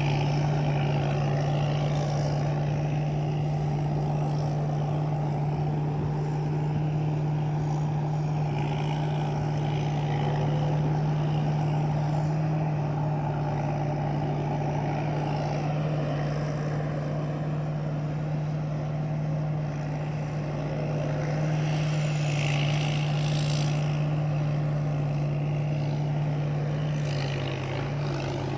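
Rice combine harvester's engine running steadily with a constant low drone, its machinery noise holding level, with brief higher-pitched swells now and then.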